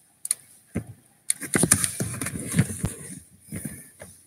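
Irregular clicks, taps and knocks close to the microphone, a few at first and then a busy clatter for about two seconds: the computer and webcam being handled.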